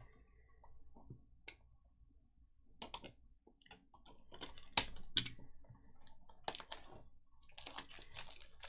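Trading card packs and cards being handled: a run of irregular sharp clicks and crinkles, sparse at first and busier from about halfway through.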